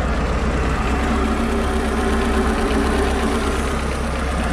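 MerCruiser 140 inline four-cylinder marine engine idling steadily just after starting.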